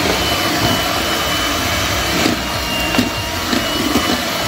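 Electric hand mixer running steadily with a faint steady whine, its beaters whipping a thick meringue of egg whites, sugar and guava juice in a stainless steel bowl, with a few light knocks about halfway through.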